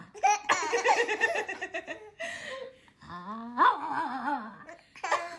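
Laughter in short bursts: a three-month-old baby's small chuckles and coos, with adults' high voices cooing and laughing at him.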